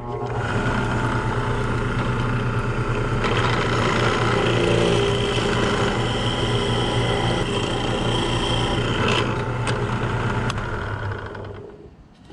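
Benchtop drill press switched on and running with a steady motor hum while a Forstner bit bores a countersink hole into a wooden 2x4, then winding down near the end.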